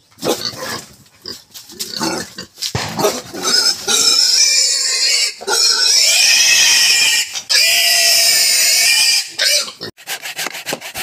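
A young pig grunting, then squealing loudly and shrilly in long, sustained cries as it is grabbed and held down by hand. The squeals break off briefly twice and stop about a second before the end.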